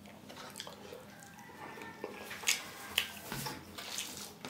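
A hand mixing rice with curry on a steel plate: soft handling sounds with light clicks of fingertips against the metal, two sharper clicks about half a second apart past the middle.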